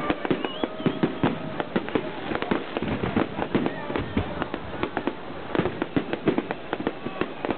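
Fireworks display: a dense, irregular run of sharp bangs and crackling reports, several a second, going on without a break.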